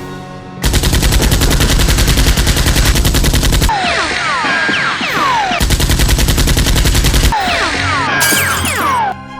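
Two long bursts of rapid automatic-gunfire sound effects, about three seconds and then under two seconds long, dubbed over a Nerf blaster fight. Between the bursts come short falling ringing tones, with music underneath.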